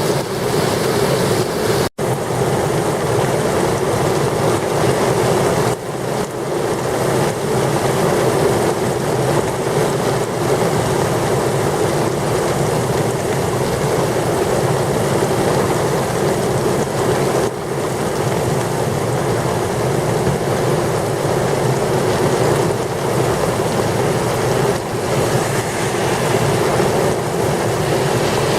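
Heavy thunderstorm rain falling hard and steadily, with gusty wind, as one dense continuous noise. The sound cuts out for an instant about two seconds in.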